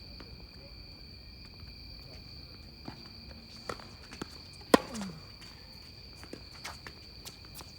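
Tennis ball being struck with rackets and bouncing during a rally: one loud, close hit a little past halfway, with fainter hits and bounces before and after, over a steady high insect chirring.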